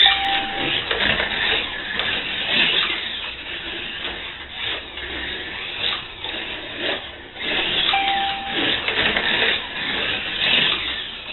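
Cheetah slot car running on a wooden routed track at 10 volts: a buzzy electric-motor and pickup rattle that rises and falls as the car goes through the corners. Two short single-pitch beeps from the race timing system sound, one near the start and another about eight seconds in.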